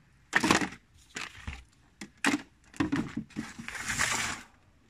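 Handling noises from a plastic crate: several knocks and rustles as a cable is pulled out, a sharp click past the middle, then a longer scrape near the end as the crate is slid across the tabletop.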